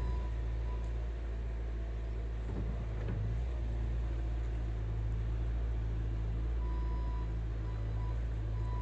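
Skid steer engine running with a steady low drone, and its backup alarm beeping on and off near the end, with a couple of faint knocks in between.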